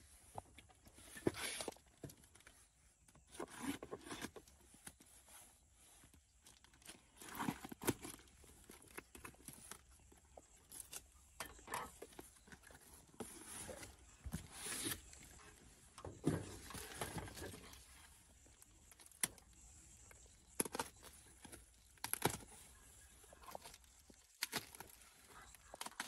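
Irregular rustling, crinkling and light clattering: scattered short handling noises with no steady rhythm.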